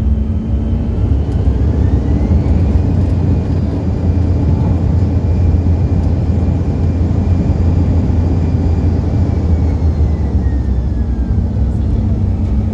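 Jet airliner cabin during taxi: steady low rumble of the engines and the airframe rolling, with a turbine whine that rises about two seconds in as thrust is added, holds, then falls away near the end.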